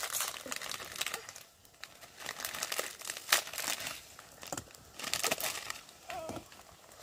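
Plastic instant-noodle packet crinkling and rustling in the hands in several bursts as the noodle block is pulled out of it.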